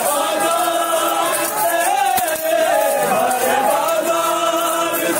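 Men's voices chanting a noha, the sung Shia lament, in long held lines.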